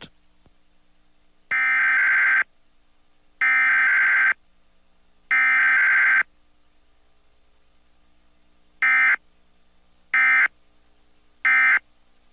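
Emergency Alert System digital data bursts: three harsh, buzzy bursts of about a second each, roughly a second apart, which are the SAME header, then after a pause of about two seconds three short bursts, which are the end-of-message code.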